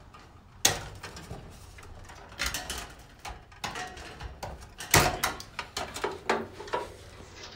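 Wire cutters snipping through the bundled insulated wires leading to a fluorescent lamp ballast: sharp clicks, the loudest about a second in and again about five seconds in, with smaller clicks and rustling of the wires between.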